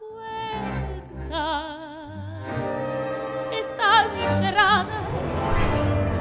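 A woman singing with a wide vibrato on held notes, accompanied by a symphony orchestra playing sustained chords beneath her. The accompaniment grows fuller and louder near the end.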